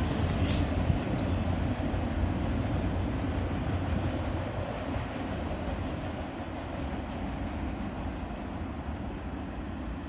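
CSX freight train's last cars rolling away on the rails, the wheel rumble slowly fading as the train recedes, with a brief faint high wheel squeal about four seconds in.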